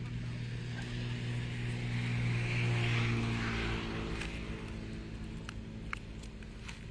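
An engine passes by: a steady hum that grows louder to a peak about three seconds in, then fades away. Several sharp crackles follow in the second half, from the burning embers.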